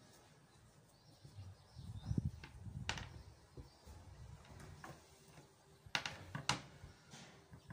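Hands handling and folding cloth on a tabletop. There are low bumps of the fabric and hands against the table in the first few seconds, and a few sharp clicks, one about three seconds in and two close together around six seconds in.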